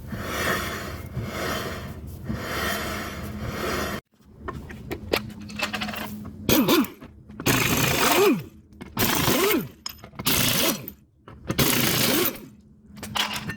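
Club Car Precedent golf cart's worn rear drum brakes grinding, metal scraping on metal: a pulsing grind at first, then a run of harsher bursts, several with a falling squeal, over a steady low hum. The grinding comes from worn-out brake shoes and drum.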